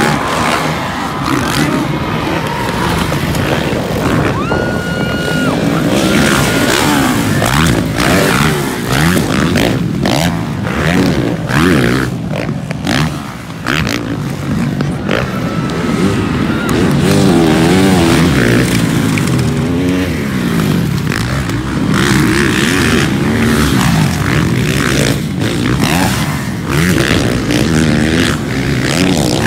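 Motocross dirt bikes racing round the track, their engines revving up and down with rising and falling pitch as they accelerate and pass. A brief held tone sounds about four seconds in.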